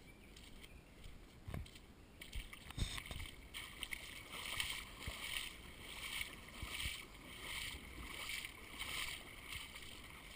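Footsteps wading through shallow floodwater over a lawn: rhythmic sloshing splashes, about one and a half a second, after a couple of soft knocks near the start.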